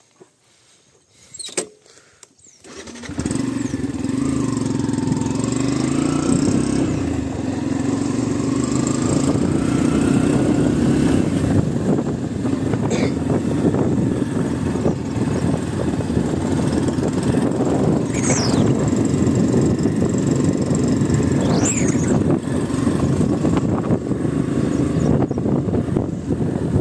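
A vehicle engine starts about three seconds in after a couple of clicks, then runs steadily.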